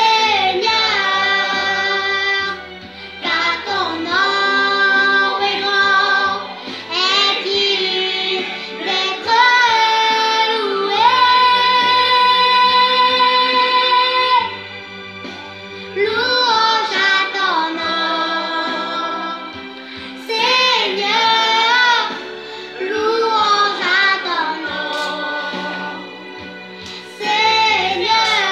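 A six-year-old girl singing, with a long held note near the middle and short pauses between phrases.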